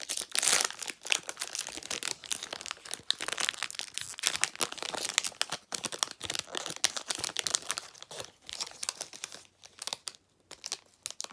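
Crinkling and tearing of a Skybox basketball card pack's wrapper as it is worked open by hand, a steady run of crackles that thins out briefly near the end.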